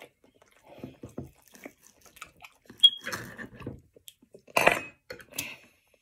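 Eating sounds: chewing and food being handled, with scattered small clicks and a sharp clink a little under three seconds in.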